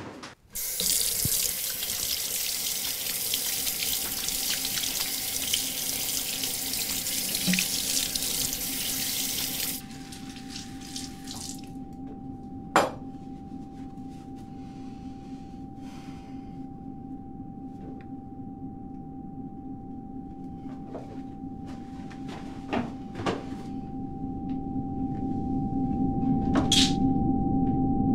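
Bathroom sink tap running, the water rushing steadily, then shut off abruptly about ten seconds in. A sustained drone with a steady high tone follows and swells toward the end, with a sharp click a few seconds after the water stops.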